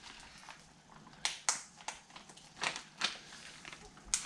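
About half a dozen short, sharp clicks and taps, spaced irregularly, from hand tools and engine parts being handled on a workbench; the loudest comes near the end.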